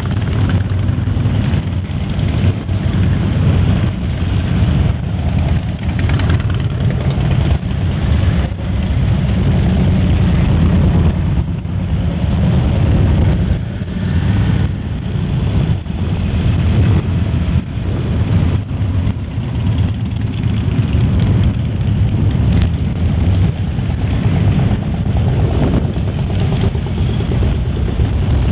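A column of cruiser and touring motorcycles riding past one after another at low speed, their engines running with a steady, loud, deep drone.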